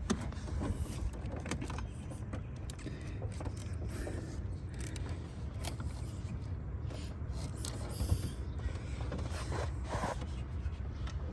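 Rubber heater core hose being wiggled and pushed onto its plastic fitting: scattered creaks, rubbing and small clicks over a steady low hum.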